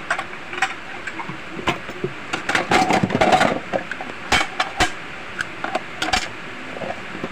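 Dishes and utensils clinking and knocking as they are handled at a sink, with a busy stretch of clatter about three seconds in.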